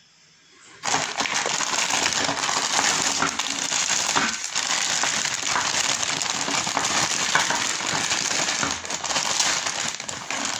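Clear plastic packaging bag crinkling and crackling as hands open and handle it, starting about a second in.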